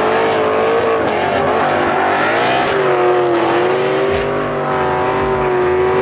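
Two Ford Mustangs doing burnouts, engines held at high revs while the rear tyres spin and squeal. The engine pitch dips about three seconds in, then holds steady.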